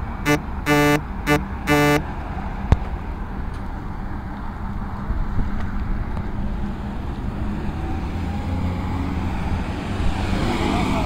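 A vehicle horn sounds four times in quick succession, short, long, short, long, followed by a single sharp click, over steady road traffic noise.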